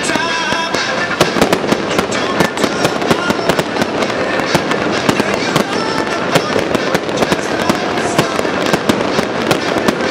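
Fireworks going off in quick succession: many sharp pops and bangs a second as shells and rising comets burst.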